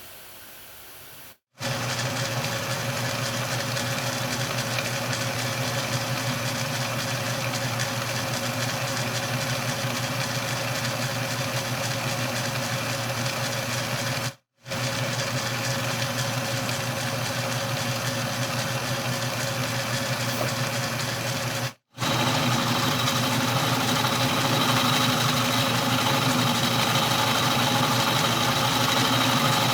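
Atlas 10-D metal lathe running with its milling attachment, taking a cut on the last flat of a square bolt head. It makes a steady motor and gear hum, which drops out briefly three times and runs a little louder from about two-thirds of the way in.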